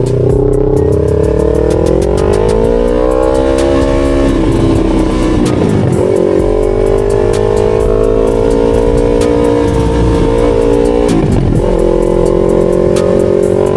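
Yamaha R3 321 cc parallel-twin motorcycle engine pulling under acceleration, its pitch climbing and then dropping back at gear changes about four and eleven seconds in.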